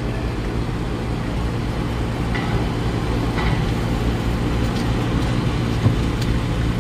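Steady low drone of an idling engine, with a single thump about six seconds in.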